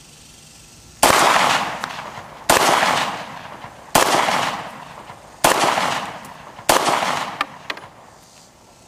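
Taurus PT-809 9mm pistol fired five times in slow succession, about a second and a half between shots, each report trailing off over about a second.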